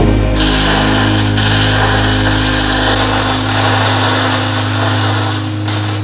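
Electric arc welding on steel plate: the arc crackles and hisses steadily. It starts about half a second in and cuts off near the end, over a steady low hum.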